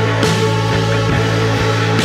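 Rock music with a steady beat of about two strokes a second, with a cymbal crash just after the start.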